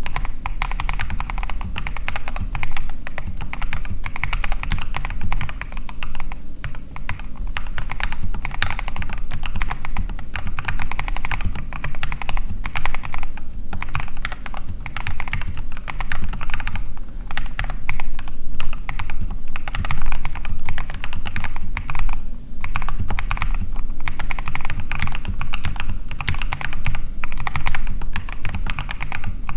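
Typing on a custom mechanical keyboard with lubed Gateron Clear linear switches: a fast, continuous stream of keystrokes.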